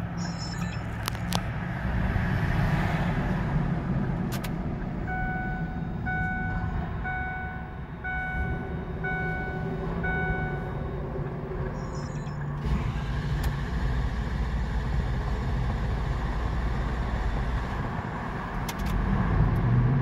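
Steady low rumble of motor vehicles, with a run of about six electronic beeps, about one a second, in the middle.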